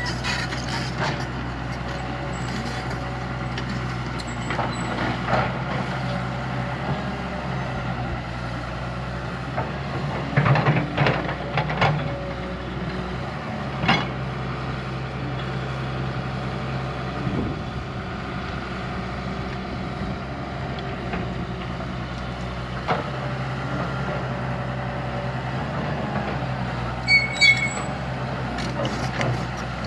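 Heavy diesel earthmoving machine running steadily, with a cluster of knocks about ten to twelve seconds in, single knocks a little later, and a short high squeak near the end.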